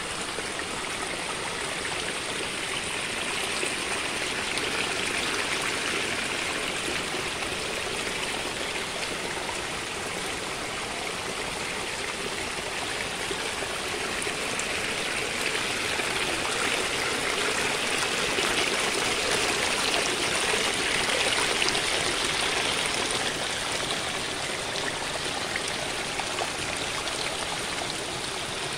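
Rainwater runoff spilling over a stone ledge in a small cascade and rushing across rocks: a steady splashing rush of water that swells slightly now and then.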